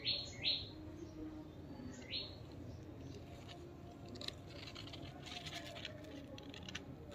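A bird chirping outdoors: a quick run of short, high, falling chirps at the start and one more about two seconds in, then faint background.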